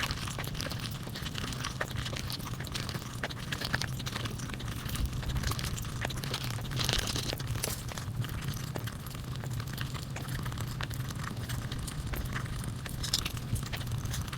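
Close-miked eating: crunching and chewing of crisp food, a dense run of sharp crackles and crunches.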